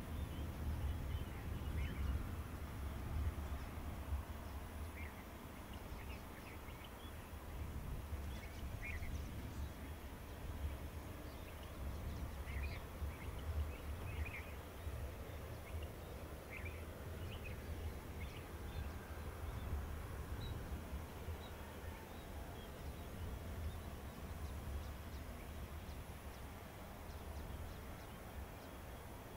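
Outdoor ambience: a steady low rumble under scattered short bird chirps, which thin out after about twenty seconds.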